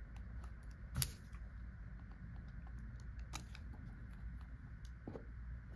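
Clear hard-plastic jewel case being worked open by hand: faint scattered clicks and creaks of the plastic, with a sharper click about a second in and another a little past three seconds.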